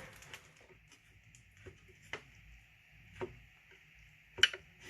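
Sparse light clicks and taps of small parts being handled, about five over a few seconds, the sharpest a little after four seconds in, over a faint steady high hiss.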